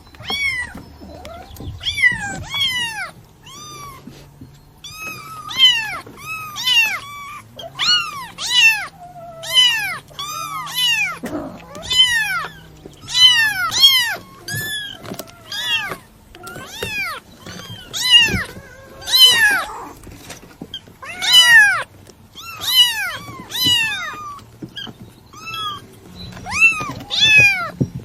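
Kitten mewing over and over: short, high-pitched calls that rise and fall in pitch, coming one or two a second, sometimes in quick pairs.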